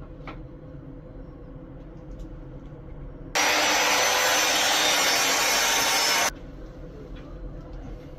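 Steady, loud noise of a tool working a block of sequoia wood for about three seconds, cutting in and out abruptly, over a faint steady hum.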